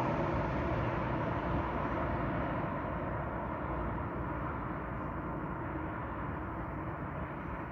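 Steady distant road traffic heard from high above a street, an even hum with no single vehicle standing out, easing off slightly toward the end.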